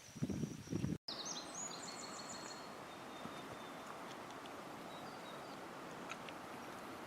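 A few low footfalls, then after an abrupt cut a small bird's short song of high, clear, stepping notes, over a steady outdoor hiss.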